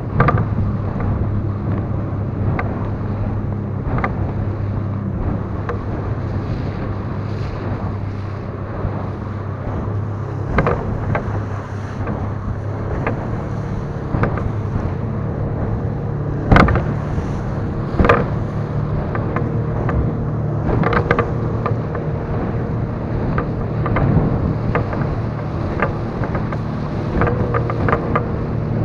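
Outboard motor on an inflatable boat running steadily at speed, a higher whine joining in the second half. The hull slaps the chop in irregular knocks, with wind on the microphone.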